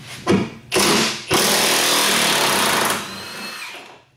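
Milwaukee cordless impact wrench hammering on a seized seat-mounting bolt, one that a breaker bar had not budged. It fires two short bursts, then a long burst of about a second and a half, then runs quieter and fades out near the end.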